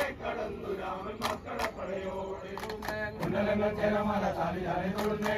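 A group of voices chanting a Poorakkali song together in a slow, sustained chant, with a few sharp clicks now and then.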